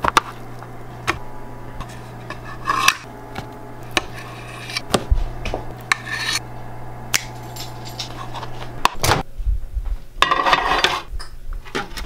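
Metal carving fork clinking and scraping against plates while slices of meatloaf and potatoes are served, with scattered knocks of dishware being moved and set down.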